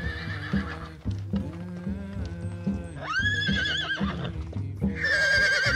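A horse whinnying three times: high, quavering neighs of about a second each, at the start, about three seconds in and about five seconds in. Underneath runs background music with a steady beat.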